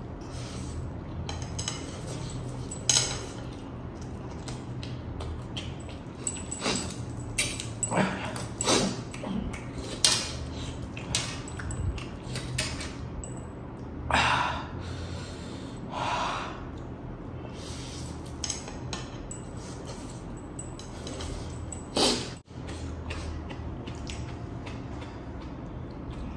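A person eating noodles: a metal fork clinking and scraping on a steel platter, with slurping and chewing in short, irregular bursts.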